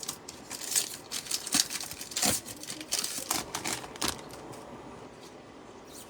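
Foil wrapper of a 2021 Playbook NFL trading-card pack crinkling and tearing as it is opened, a rapid run of crackles that stops about four seconds in.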